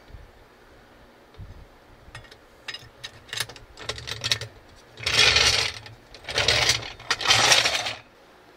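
Hydraulic floor jack let down from under a car's rear suspension, with a few light metallic clicks, then dragged out across asphalt in three loud bursts of rolling and scraping metal noise in the second half.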